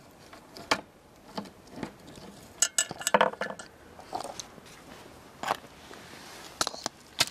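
Sharp metal clicks and clinks of valve-train parts being handled on a Volvo B200E cylinder head as a valve is stripped with a spring compressor: a quick cluster of clinks about three seconds in, and single clicks scattered before and after.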